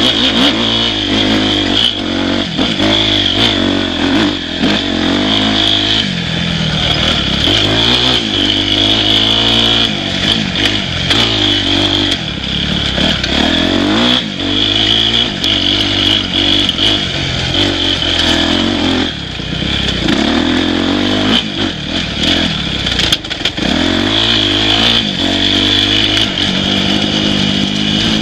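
Dirt bike engine revving up and down without pause under changing throttle, its pitch rising and falling every second or two, with scattered knocks and clatter as the bike goes over a rocky trail.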